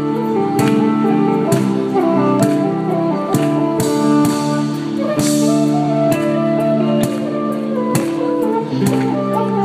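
Street band playing: electric guitar chords under a wind-instrument melody, with percussion striking a steady beat.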